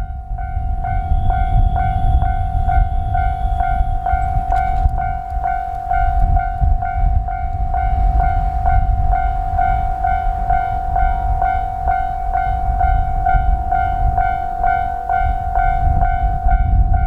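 Japanese level-crossing warning bell ringing steadily at about two strikes a second. Underneath is a loud low rumble from a JR Hokkaido H100 diesel-electric railcar passing over the crossing.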